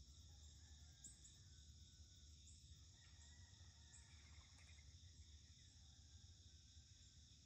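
Faint, steady chorus of insects in the garden, a continuous high shrilling, over a low background hum, with a few brief high chirps.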